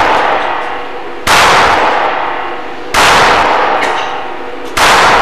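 Three pistol shots about a second and a half to two seconds apart, each sudden and loud, trailing off slowly.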